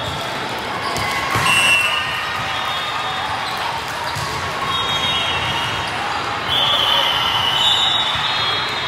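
Echoing din of a volleyball hall with many courts in play: balls being struck and bouncing, players' voices calling out, and short high squeals over the steady background, louder about six and a half seconds in.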